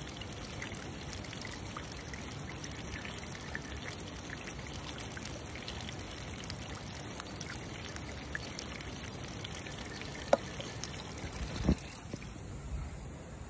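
Hot-spring water running steadily. Near the end come two sharp knocks as the phone is picked up and handled.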